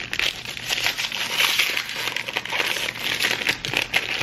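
White paper wrapper of an ice cream bar being pulled open and peeled off by hand, a continuous crinkling and rustling with many small crackles.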